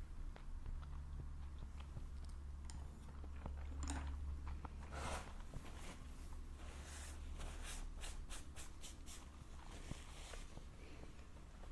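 A person chewing and biting food close to the microphone, with soft wet mouth sounds and a run of quick crunchy clicks about seven to ten seconds in.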